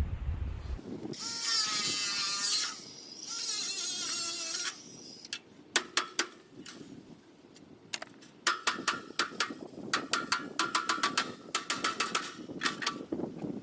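Hand tools working on the harvester's bolts: a power tool runs twice for about a second and a half each, its pitch wavering, then a ratchet clicks rapidly in runs.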